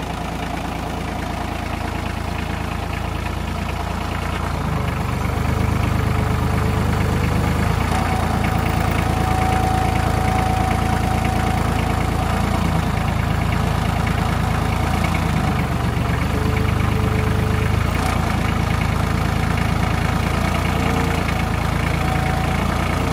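Ford 1520 tractor's three-cylinder diesel engine running. It gets louder about five seconds in and stays so while the front loader lifts its bucket.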